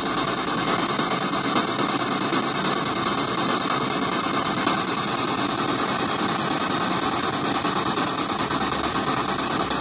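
Spirit box, a pocket radio sweeping rapidly through stations, played loud through a portable Bluetooth speaker: steady hiss of radio static with a fast, choppy flutter.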